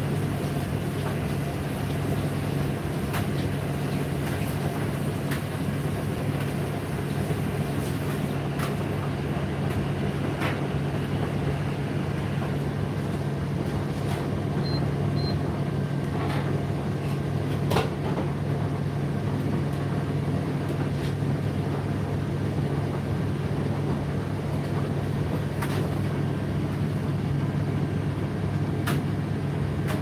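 Indesit IDC8T3 8 kg condenser tumble dryer running through its drying cycle: a steady low hum from the drum turning, with occasional light knocks.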